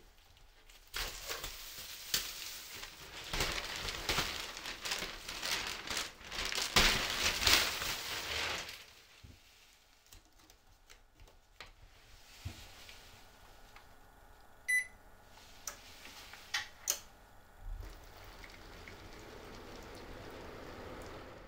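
A loud hissing, crackling noise lasting about eight seconds, then quieter, with a single short electronic beep, a few sharp clicks and a faint steady hum near the end.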